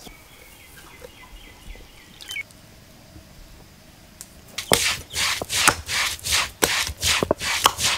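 Fennel seeds being crushed with a cylindrical grinding stone on a stone slab. After a quiet start, a quick run of sharp stone-on-stone knocks begins about halfway through, roughly three a second.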